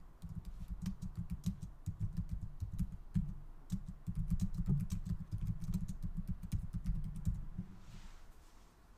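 Typing on a computer keyboard: a quick run of keystrokes that stops about a second before the end.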